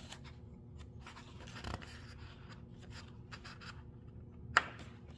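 Paper pages of a hardcover picture book rustling and scraping lightly as a hand handles them, with small ticks and one sharp click near the end as the page is moved, over a faint steady hum.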